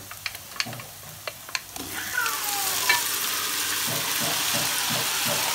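A few light clicks in the pan, then boiled breadfruit pieces are tipped from a steel pot into a hot non-stick wok of frying onion, garlic and chilli, setting off a loud sizzle about two seconds in that keeps going. A brief falling squeak sounds as the pieces go in.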